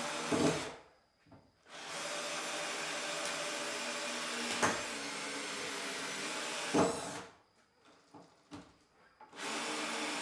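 Cordless drill driving screws into timber overhead. It runs in three spells: a short one at the start, a long steady one of about five seconds starting about two seconds in, with two brief sharper peaks, and another starting near the end.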